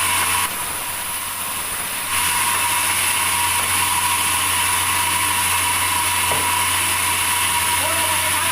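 Sawmill machinery running steadily: a continuous machine noise over a low hum, dipping in level about half a second in and coming back up about two seconds in.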